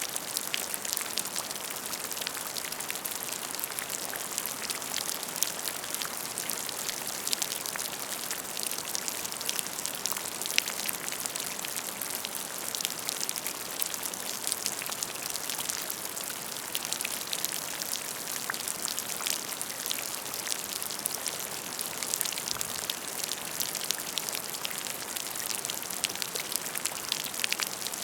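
Steady rain falling, a constant hiss dotted with many sharp, close raindrop ticks.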